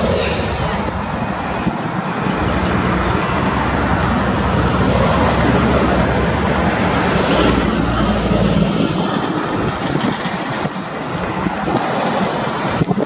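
KiwiRail DFT-class diesel-electric locomotive running slowly past at close range: its EMD two-stroke diesel engine runs steadily under the noise of its wheels rolling over the rails.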